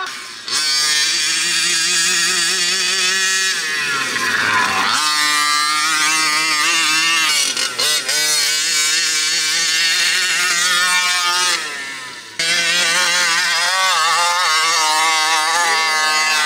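1/5-scale Raminator RC monster truck's 49cc two-stroke gas engine revving up and down as the truck drives through snow, its pitch rising and falling with the throttle. The engine note drops away briefly about four seconds in and again near twelve seconds.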